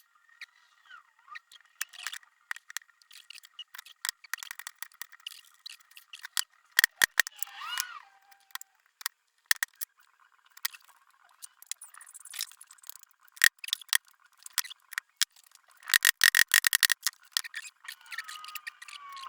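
Metal lathe chuck parts clicking and clinking as they are handled during greasing and reassembly, with a brief squeak around a third of the way in and a fast run of clicks about sixteen seconds in.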